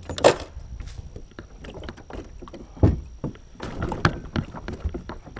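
Knocks, thumps and scrapes on the plastic hull of a Wilderness Systems ATAK 140 fishing kayak as a man handles it at the bow and steps aboard. There is a brief loud scrape just after the start, a heavy thump about halfway, and a quick run of knocks near the end as his feet land in the hull.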